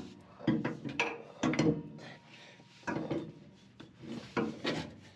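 Knocks and rubbing as the new driveshaft for a 2006 Kia Sorento is handled and lifted into place under the car, in several short bursts about a second or so apart.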